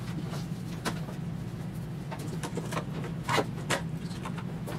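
Small clicks and rustles of insulated hookup wire being handled and twisted by hand, a few light ticks scattered through, over a steady low hum.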